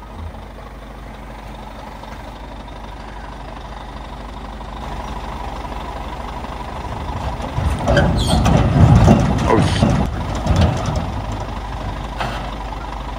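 Heavy diesel machinery running at a lift site: a lorry and a large mobile crane idling. About halfway through the engine noise builds, and there is a louder stretch of engine noise with knocks for about three seconds.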